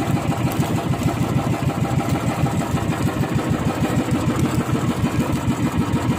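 A small fishing boat's engine running at a steady speed, with a fast, even beat.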